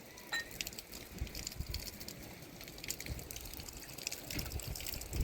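Rain falling, a dense crackle of drops with irregular low rumbles underneath.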